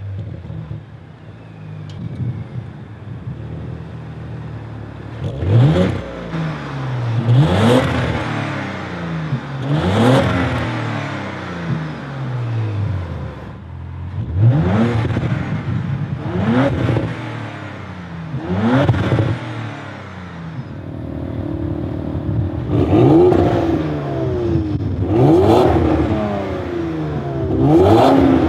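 Audi RS4's 2.9-litre twin-turbo V6, stationary, blipped up and down about nine times through a Milltek Sport valved cat-back exhaust, each rev rising sharply then falling back to idle.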